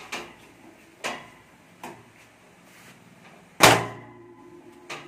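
Stainless steel door panel lying flat and taking the weight of men jumping on its corner to straighten out a warp: a few light knocks, then about three and a half seconds in a loud metallic bang that rings on for a while.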